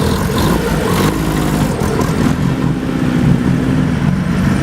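Vintage sports car engine running loudly, its note fairly steady, with a higher tone coming in about halfway through.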